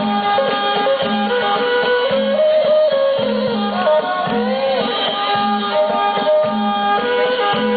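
Traditional Thai-Khmer folk music for the rueam trut dance: a hand drum keeps a steady repeating beat under a wavering melody line.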